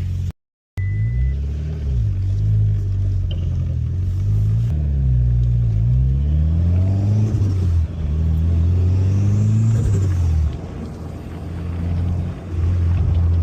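Car engine running while driving, pitch climbing under acceleration and dropping back several times. It eases off briefly near the end, then picks up again.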